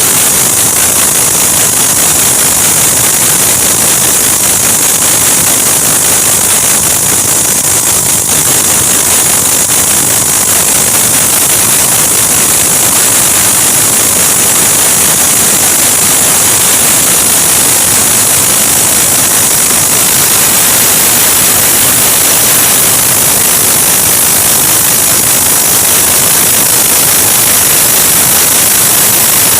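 Concrete core drill machine running steadily: a loud, even noise with a strong high hiss.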